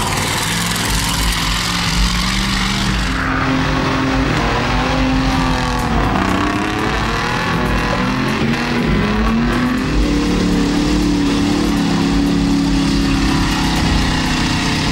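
Off-road 4x4 mud trucks' engines revving hard while driving through a mud pit, the engine pitch rising and falling repeatedly over a constant low rumble.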